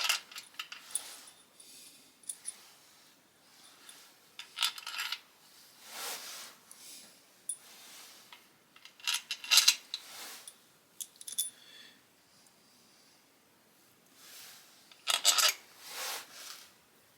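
Small metal parts clinking and rattling against metal as they are handled and set into place during engine assembly, in scattered clusters of sharp ringing clicks with quiet gaps between.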